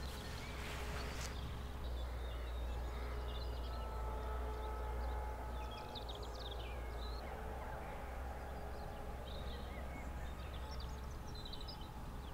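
Scattered bird calls, short chirps and whistles, over a low steady hum of countryside background noise.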